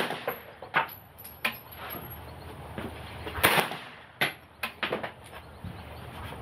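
Kodiak K9 9mm carbine firing single shots from a bench rest, several of them spaced roughly a second or more apart. The loudest shot comes about three and a half seconds in.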